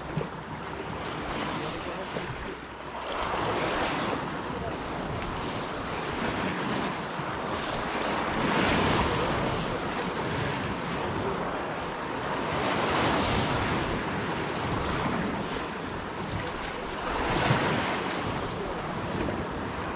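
Sea waves washing and surging in slow swells every four to five seconds, with wind on the microphone.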